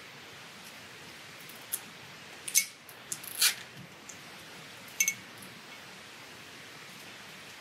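Nylon cable tie being threaded around silicone tubing and pulled through its locking head by gloved hands: a handful of short clicks and squeaky rasps, spread a second or so apart.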